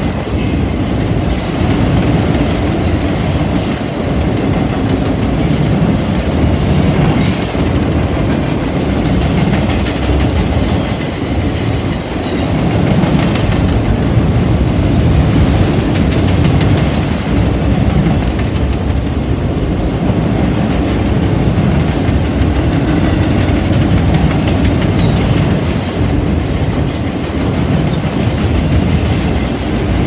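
Freight cars of a CSX train rolling past close by with a steady rumble, while the wheels squeal on the curve in thin high tones that come and go, die away in the middle and return near the end.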